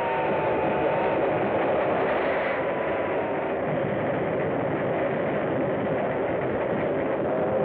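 Steam locomotive running with a steady rushing rumble. Its whistle is still sounding at the start, its note dropping and fading within about the first second.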